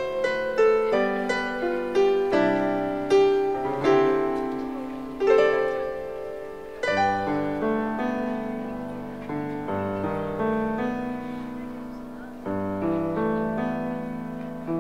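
Solo piano background music: gentle chords and melody notes struck and left to ring away, with a fuller chord coming in about halfway through and again near the end.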